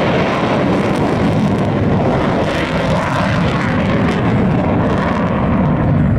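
Jet aircraft engine noise, loud and steady.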